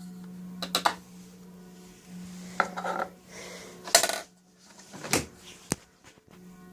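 Miele W941 washing machine: a series of sharp metallic clicks, knocks and clatters over a steady low hum, the loudest knock about four seconds in.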